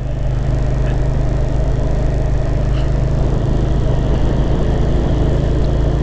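Motorcycle engine running at a steady speed while riding, a constant low drone with no change in pitch.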